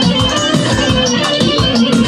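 Instrumental music with a steady beat: drums and percussion under held melody notes, with no singing.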